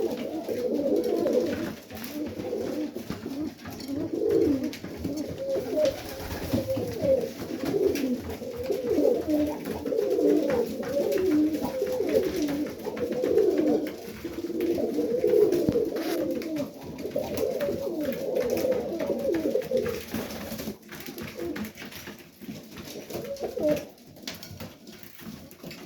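Serbian Highflyer pigeons cooing almost continuously, the calls thinning out over the last few seconds.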